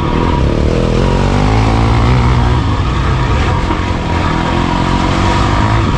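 Off-road motorcycle engine revving under load on a climb, its pitch rising and falling as the throttle is worked.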